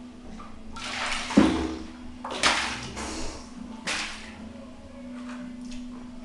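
Water splashing in three short rushes, about a second and a half apart, over a faint steady hum.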